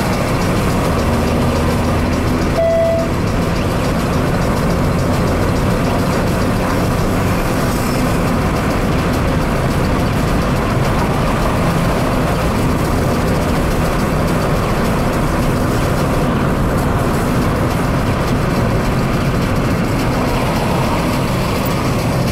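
Opel Astra Coupe Bertone Edition's 2-litre engine running steadily with tyre and road noise, heard from inside the cabin while driving. A brief beep about three seconds in.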